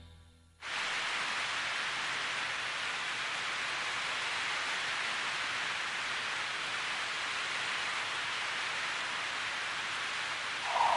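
Steady rain falling, starting suddenly about half a second in after a moment of silence, and holding an even level throughout.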